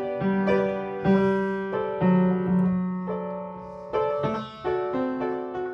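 Solo piano playing a slow, gentle melody, each note struck and left to fade.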